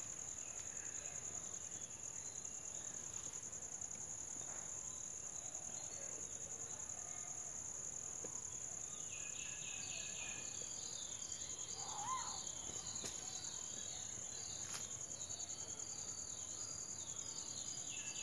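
Steady high-pitched drone of crickets and other insects. A faster chirping pattern joins from about halfway, and there is a single short rising-and-falling call about twelve seconds in.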